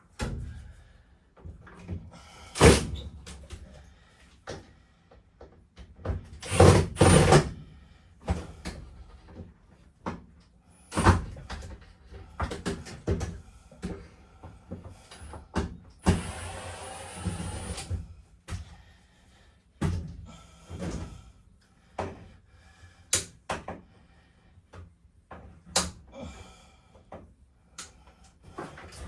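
Irregular knocks, clunks and rattles of interior panels, boards and wiring being pulled and pried out of a 1972 Winnebago Brave RV during teardown, with a rough scraping noise lasting about two seconds a little past halfway.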